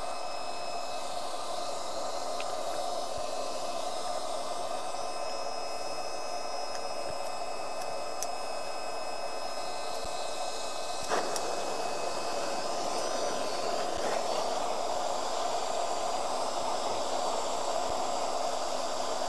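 Small electric blower of a homemade smoke generator running steadily with an even whirring hiss. About eleven seconds in comes a sharp click, and a handheld gas cartridge torch adds its hiss as it lights the smoke generator.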